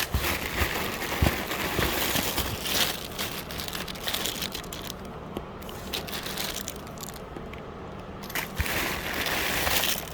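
Hands rummaging through a box of assorted fashion jewelry: packaging crinkling and rustling, with scattered small clicks.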